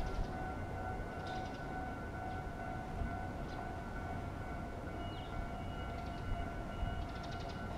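Japanese level-crossing warning alarm sounding steadily, its electronic bell tones ringing on without a break: the crossing is active for an approaching train.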